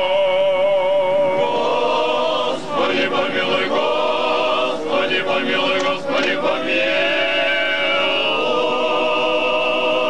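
Russian Orthodox liturgical chant: voices singing in long, held notes, more broken up in the middle.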